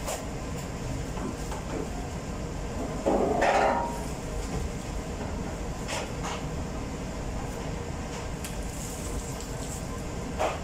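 Bakery workroom noise: a steady low machinery rumble, with a louder clatter of metal baking trays about three seconds in and sharp single knocks near six seconds and again near the end.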